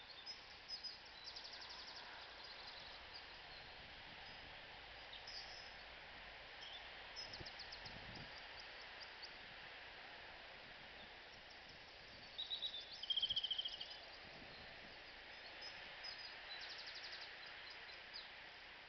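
Small birds chirping and giving quick high trills over a steady faint outdoor hiss. The loudest is a pair of short high whistled phrases about two-thirds of the way through.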